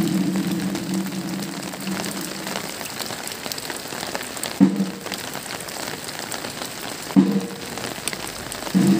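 Steady heavy rain falling on a wet paved parade ground. A low steady hum fades out in the first second, comes back in two short blips about four and a half and seven seconds in, and returns near the end.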